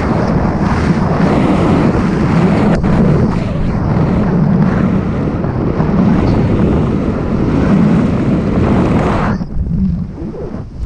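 Wind buffeting the action camera's microphone during a descent under an open ram-air parachute canopy, a loud, steady rush that drops off sharply about nine and a half seconds in.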